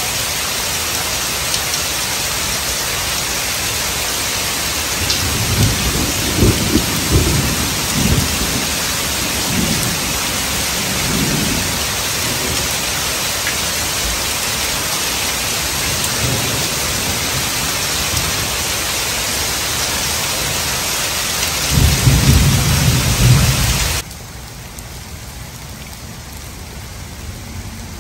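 Heavy rain pouring steadily onto wet pavement, with thunder rumbling from about five seconds in and again, louder, shortly before the end. Right after that rumble the rain sound drops suddenly quieter.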